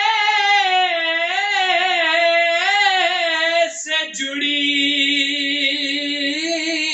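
A man singing an Urdu naat unaccompanied, drawing out long melismatic notes whose pitch wavers and turns. About four seconds in there is a brief break, then he holds another long, steadier note.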